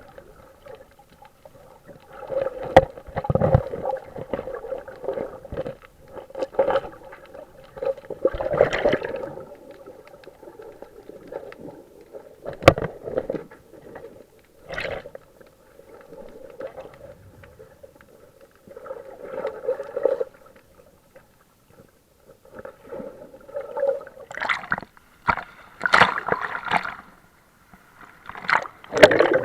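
Water sloshing and gurgling around a camera in the sea, in irregular bursts every second or two with a few sharp knocks, over a faint steady hum.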